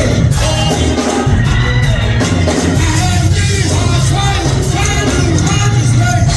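Gospel music with singing over a full band with bass and drums, with shouts from the congregation.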